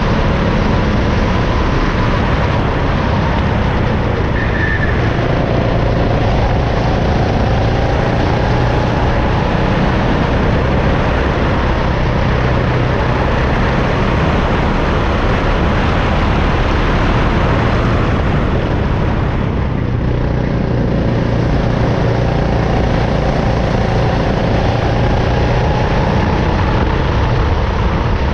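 CRG rental go-kart's engine heard from onboard the kart, running hard with its pitch rising and falling through the corners and briefly easing about twenty seconds in.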